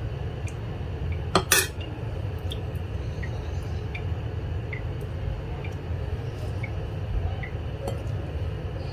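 Metal cutlery clinking against a plate or serving dish: a quick pair of sharp clinks about a second and a half in, then a few faint light taps, over a steady low hum.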